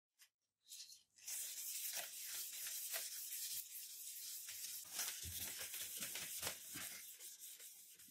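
Sandpaper on a hand-held block rubbed back and forth along a freshly hardened steel knife blade, scraping in quick repeated strokes that start about a second in.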